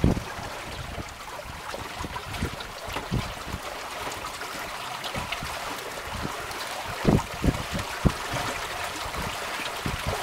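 Water rushing and splashing along the hull of a sailboat under way, with wind buffeting the microphone in low gusts, a couple of stronger ones late on.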